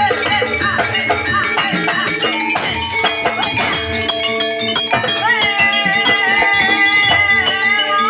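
Live jaranan music from a traditional Javanese ensemble, with metallic percussion and a high melody line in quick gliding ornaments, settling into a long wavering held note about five seconds in.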